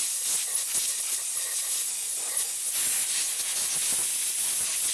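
Compressed-air blow gun hissing steadily as it blows metal chips out of a freshly sawn slot in a metal block.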